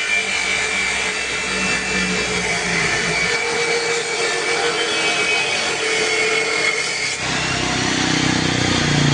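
Power cutting machine running and cutting steadily. About seven seconds in, its sound shifts to a lower tone.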